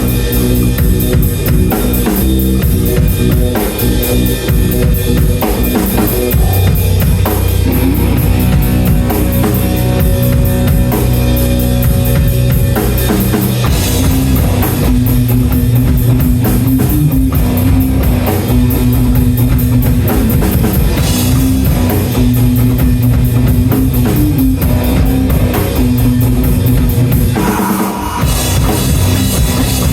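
Loud rock music driven by a full drum kit, with bass drum and snare beating steadily. There is a short break about 28 seconds in, and then the music comes back in.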